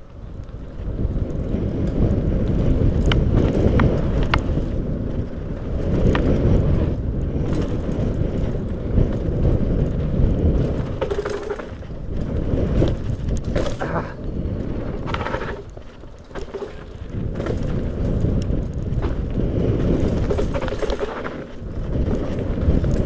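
Mountain bike descending a dirt trail at speed: wind buffeting the microphone and tyres rumbling over the ground, swelling and easing with the terrain. Scattered sharp clicks and knocks come from the bike as it goes over bumps.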